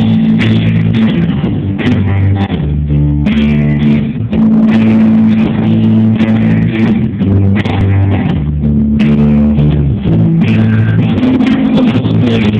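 Live rock band playing: electric guitars and bass guitar over drums, sounding muffled.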